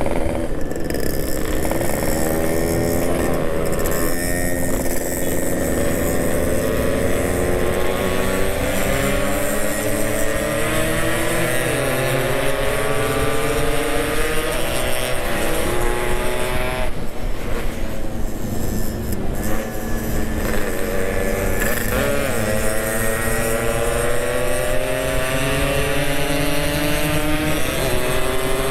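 Yamaha RX-King's two-stroke single-cylinder engine under way, heard from the saddle: its pitch climbs steadily and drops back at each gear change, a few times, over steady wind noise.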